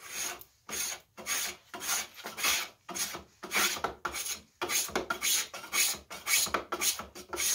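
Stanley No. 60 combination spokeshave shaving the edge of a new wooden chair rocker in quick, repeated strokes, about two or three a second and coming closer together in the second half: the strokes cut a slight crown on the rocker's edge.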